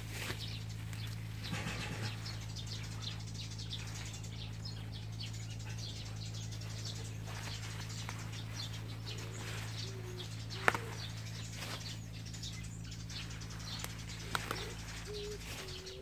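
A dove cooing in short low stepped notes, about nine seconds in and again near the end, over a steady low hum and light rustling of leaves, with one sharp click about ten and a half seconds in.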